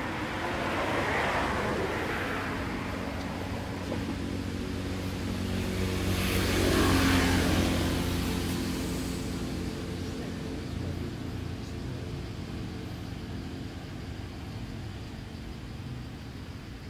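A motor vehicle's engine passing, growing louder to a peak about seven seconds in and then fading, over a steady low hum.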